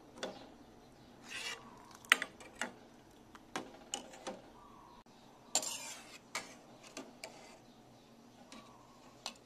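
Kitchen handling sounds at a stainless steel cooking pot: irregular clinks and knocks of a utensil and food against the pot, with a couple of brief rustling swishes.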